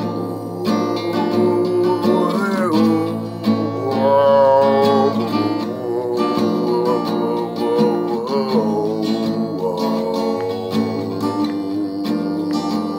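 Acoustic guitar strummed steadily, its chords ringing on, with a man's voice singing along in places without clear words.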